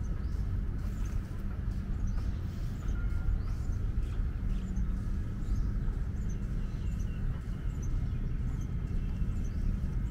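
A domestic cat purring in a low, steady rumble while being stroked on the head, with small birds chirping again and again in the background.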